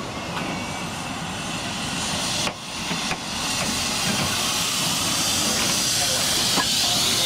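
Steam hissing from a narrow-gauge tank steam locomotive as it moves slowly. The hiss grows louder and brighter over the second half.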